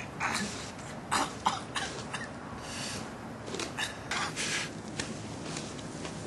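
Irregular short scuffs and breathy huffs of effort from a man shuffling along a paved path on his knees with a crutch.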